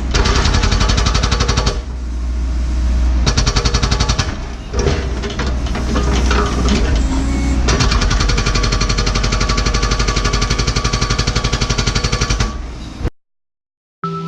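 Hydraulic rock hammer on a Cat 314E excavator pounding hard blue-rock bedrock with rapid, evenly spaced blows over the excavator's running diesel engine, in runs broken by short pauses. The hammering cuts off abruptly about thirteen seconds in.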